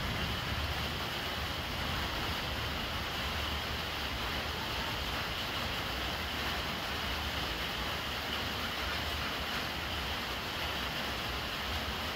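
Steady rain falling, with a thin stream of water running from a plastic downpipe onto the wet lid of a large water jar. It is an even, unbroken patter with no separate knocks or drips standing out.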